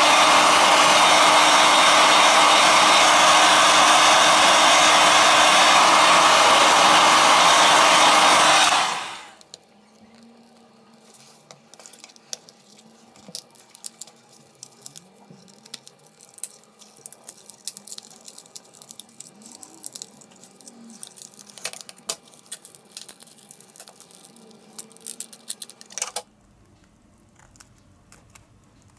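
Heat gun blowing, a loud steady rush of hot air with a low fan hum, heating the phone's cracked screen to soften its adhesive; it cuts off suddenly about nine seconds in. Then faint clicks and scrapes as the screen is pried off with a plastic opening tool and tweezers.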